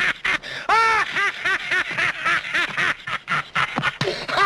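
An old man's high cackling laughter, quick whooping syllables repeated several times a second.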